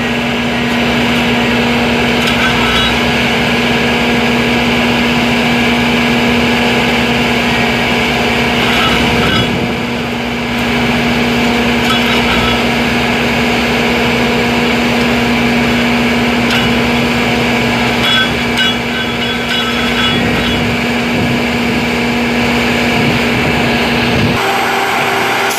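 Railroad track maintenance machine's engine and hydraulics running steadily with a constant hum, with a few short clinks from its workhead. The hum cuts off suddenly near the end.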